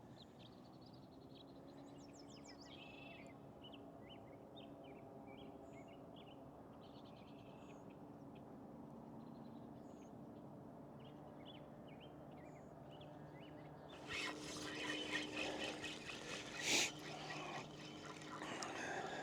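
Small birds chirping and calling in short, scattered phrases over a faint steady hum. About three-quarters of the way through, close rustling and clattering takes over, with one sharp knock near the end.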